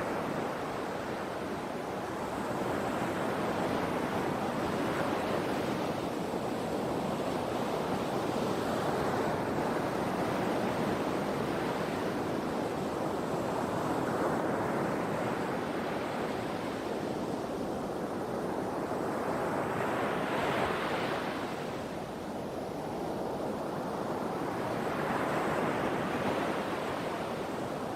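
Sea waves washing in one after another: a continuous rush of surf that swells and falls back every few seconds. The biggest, brightest break comes about twenty seconds in.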